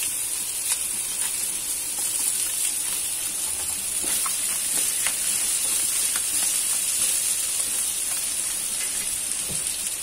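Chopped garlic sizzling steadily as it fries in oil rendered from chicken in a pan, with a few light clicks of a utensil stirring against the pan.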